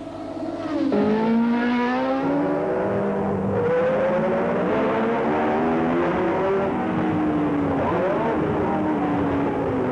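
1970s Formula 1 car engine heard from on board. It revs up through the gears, its pitch climbing and dropping back at each shift several times.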